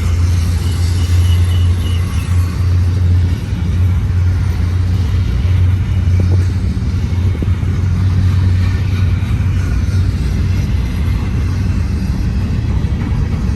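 GE ES44 diesel-electric locomotives pulling a long freight train as it gets up to speed: a loud, steady low engine drone over the rumble of the train.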